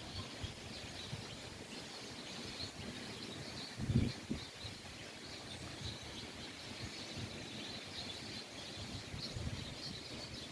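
Many small birds chirping together, a dense chatter of short high chirps, with one brief low rumble about four seconds in.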